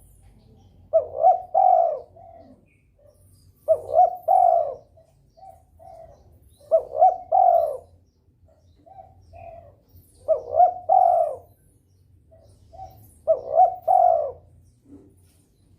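Derkuku (spotted dove) in breeding condition cooing over and over: five phrases about three seconds apart, each of two or three loud low coos trailed by a few softer short coos. Faint high chirps of small birds sound in the background.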